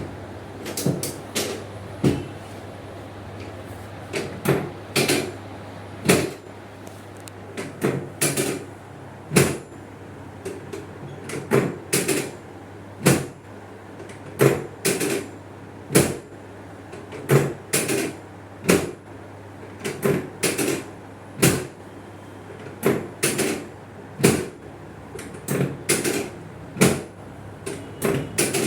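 Repeated sharp knocks, irregular, about one or two a second, over a steady low hum. They fit hands striking or working on a patient's body during a chiropractic treatment.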